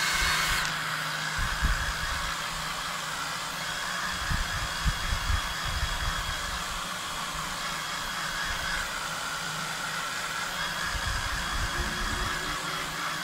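Handheld hair dryer running steadily: a loud rush of air with a faint high motor whine and a few low bumps.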